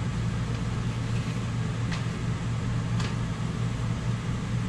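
A fan running with a steady low hum. Two light clicks of a metal spatula against the skillet come about two and three seconds in.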